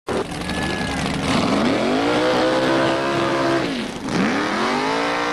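Drag-racing car's engine revving hard through a burnout, the rear slicks spinning. The pitch rises and holds high, drops briefly just before four seconds in, then climbs again and holds.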